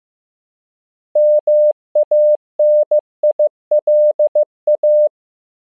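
Morse code at 15 words per minute, a single steady mid-pitched electronic beep keyed in dots and dashes, starting about a second in and running for about four seconds. The pulses spell MANILA (-- .- -. .. .-.. .-).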